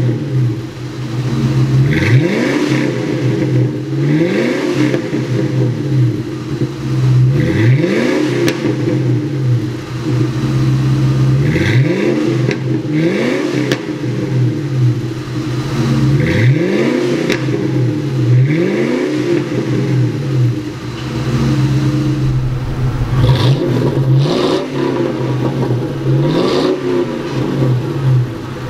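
2000 Ford Mustang GT's 4.6-litre V8 through a dual exhaust with Gibson MWA mufflers, idling and revved in quick blips every couple of seconds, each rising sharply and dropping back to idle.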